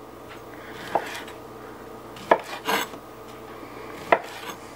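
Kitchen knife slicing through smoked kielbasa, the blade knocking on a wooden butcher-block cutting board four times, each cut ending in a sharp knock.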